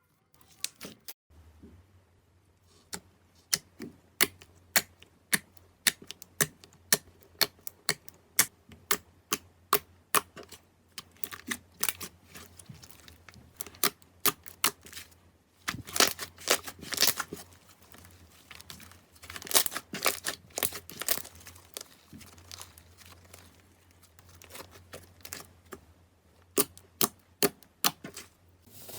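Slime being handled and pressed, giving a string of sharp clicks and crackles, a couple each second, that thicken into dense crackling about halfway through and again a few seconds later.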